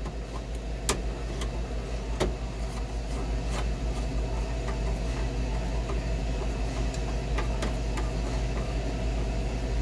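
Steady low machinery hum, with a handful of light, sharp metallic clicks from a screwdriver tightening the clamp that holds a thermostatic expansion valve's sensing bulb to the suction line.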